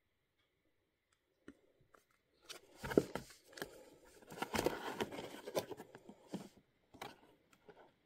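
A stack of printed card bookmarks being shuffled and handled over an opened cardboard box: papery rustling with light taps and clicks, starting about two and a half seconds in.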